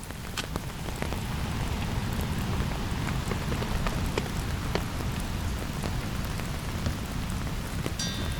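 Steady rain falling on a tent, with scattered individual drops ticking sharply over a low rumble.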